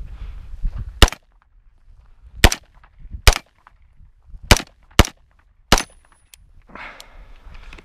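KE Arms AR9 9mm AR pistol firing six single shots at uneven intervals over about five seconds.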